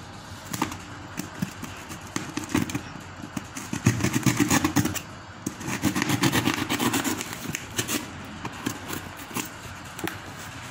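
Utility knife slitting packing tape and plastic stretch wrap on a cardboard box, with a run of small crackles and scrapes. A louder, lower rumble comes in twice, about four and six seconds in.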